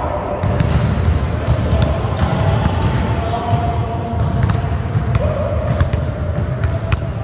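Basketballs being dribbled on a hardwood gym floor: repeated thudding bounces throughout.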